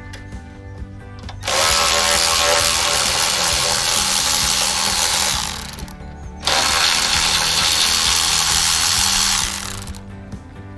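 Two long, loud bursts of pressurized spray hissing, each lasting three to four seconds, with a short break between them.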